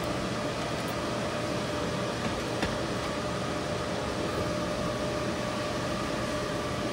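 Steady whir of cooling fans with a faint hum in it, and one faint tap about two and a half seconds in.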